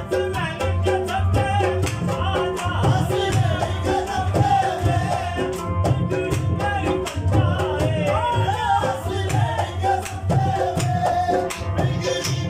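Qawwali: an ornamented, wavering sung line over a steady rhythmic drum beat with sharp percussive strokes.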